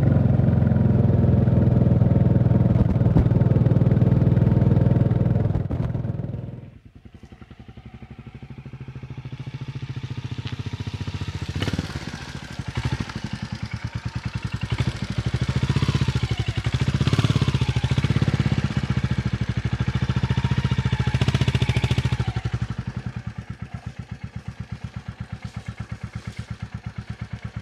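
Royal Enfield Classic 350 single-cylinder engine running under way, loud and steady. About six seconds in the sound drops suddenly, then grows again with the revs rising and falling. It settles into a steady, even thumping idle for the last few seconds.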